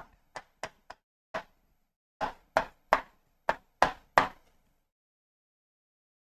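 A pen tapping against the screen of an interactive display board while writing: about ten short, separate taps over the first four and a half seconds.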